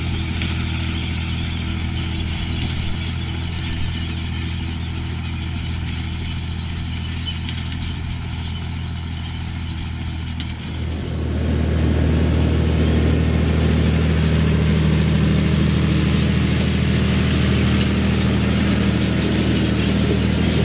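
John Deere 3350 tractor's turbo diesel engine running steadily under load, pulling a John Deere 1590 seed drill through stubble. About halfway through the sound becomes much louder and closer, with a rough noisy layer over the engine's hum.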